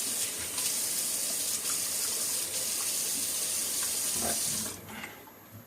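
Water running steadily from a tap, shut off abruptly near the end, as a little water is added to a shaving mug of soap.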